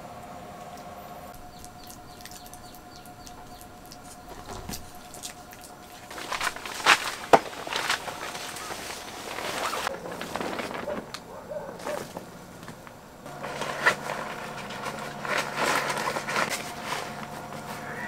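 Rustling and crinkling of an air shelter's fabric door panel being opened and rolled up, with sharp clicks and snaps, loudest about six to eight seconds in and again near the end. A faint steady hum runs underneath.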